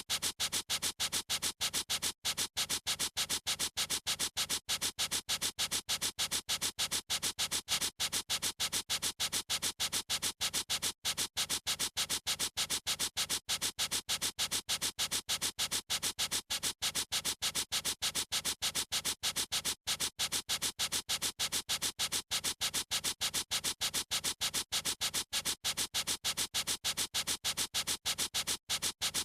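A marker or pencil tip scribbling back and forth on paper in quick, even strokes, about four or five a second, without a break.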